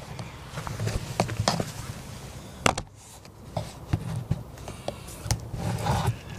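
Close handling noise from an action camera being set in place: irregular clicks and knocks with rustling over a low rumble.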